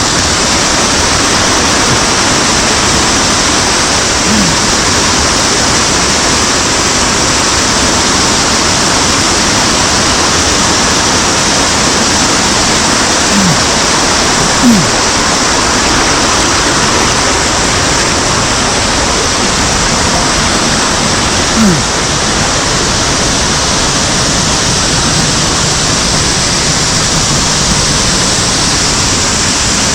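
Loud, steady rush of a mountain stream's cascading water, with a few brief low knocks.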